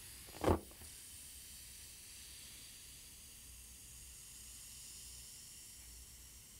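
Faint steady hiss of room tone, with one brief low sound about half a second in.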